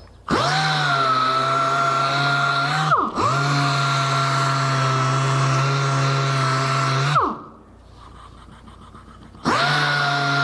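Random orbit sander running against a wood post with a steady hum and high whine. It spins up at the start, dips for a moment about three seconds in, winds down with falling pitch about seven seconds in, and starts again near the end.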